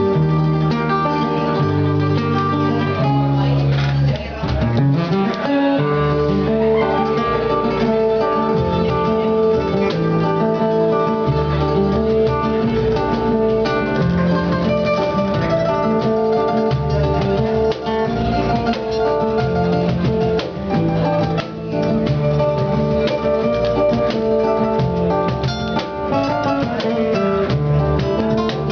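Acoustic guitar music, plucked and strummed over a moving bass line, in a Spanish, flamenco-like style.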